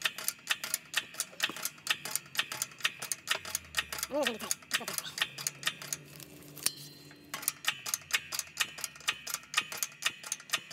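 Shop press pumping in rapid, even clicks, about four to five a second, as its ram pushes a new wrist pin bushing into a Cummins 4BT connecting rod with a homemade tapered tool. A short falling squeak comes about four seconds in. The clicking stops for about a second and a half, about six seconds in, then starts again.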